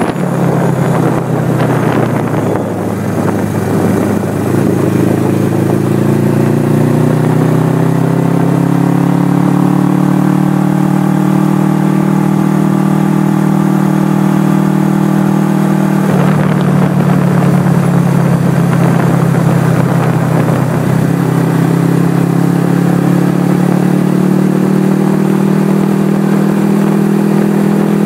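1979 Suzuki GS425L's air-cooled parallel-twin engine under way. It rises in pitch as the bike accelerates, holds a steady cruise, drops away into wind rush about sixteen seconds in, and climbs again from about twenty-one seconds.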